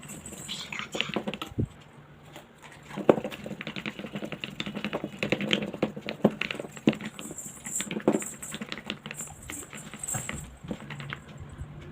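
Slime mixture being stirred in a mixing bowl with activator: irregular small clicks, taps and wet squelches from the stirrer working the glue.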